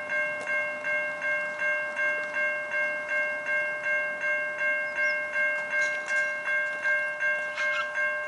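Electronic railway level-crossing warning bell ringing steadily, about three strokes a second over a constant tone: the crossing has activated for an approaching train.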